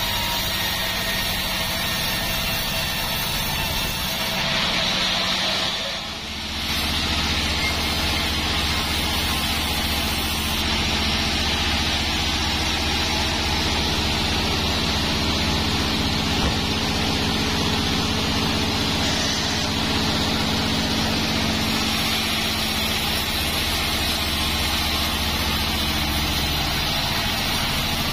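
Band sawmill running with a steady mechanical drone, which dips briefly about six seconds in and then runs on evenly.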